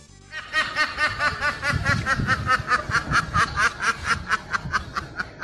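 A flock of ducks quacking together in a fast, steady chatter of short calls, about six a second, starting suddenly just after the start.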